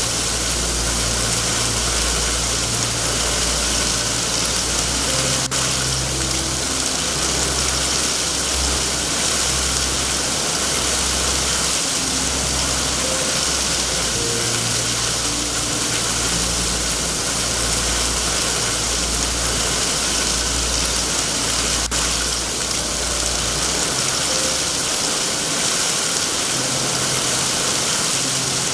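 Steady heavy rain, a dense even hiss, over a low uneven rumble that drops away near the end.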